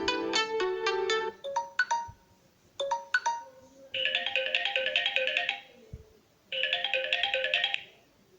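Samsung Galaxy J5 (2017) ringtones played one after another. A melodic tone ends about a second in, a few short separate notes follow, then two short bursts of a quick, rhythmic chiming tune.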